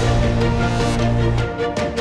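Background music: a held bass note under sustained chords, with drum beats coming back near the end.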